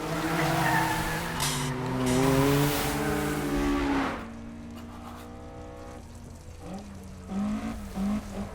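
Sports car engines revving hard during a race, their pitch rising and falling through gear changes, with tyre squeal. About four seconds in the sound drops to a quieter, steadier engine note, with short rising revs near the end.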